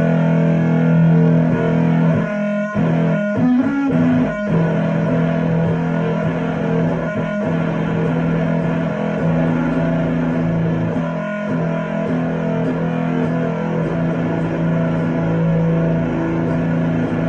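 Electric guitar played through a Death By Audio Crossover Fuzz pedal: long, sustained fuzzed notes, with a few quick breaks and re-attacks a few seconds in and again near the middle.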